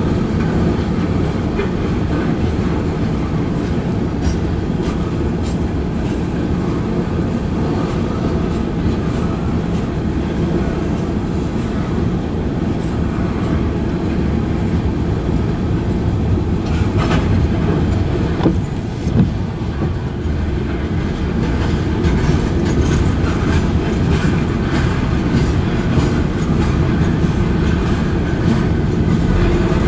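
Freight train cars (tank cars and covered hoppers) rolling past at a grade crossing: a steady rumble and clatter of steel wheels on the rails, with a few sharper knocks a little over halfway through.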